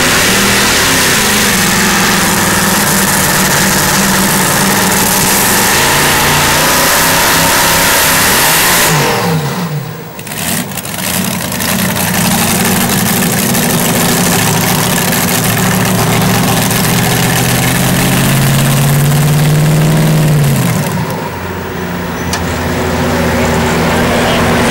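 Modified pulling tractor's engine running hard under the load of the sled. About nine seconds in its revs fall away sharply, then climb again. Around twenty seconds in the revs drop once more and it settles to a lower, steadier run as the pull ends.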